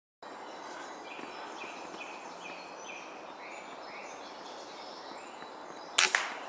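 A songbird repeats short chirping notes over a steady outdoor hiss. About six seconds in comes a single sharp crack: a shot from a hybrid FX/Logun .22 air rifle.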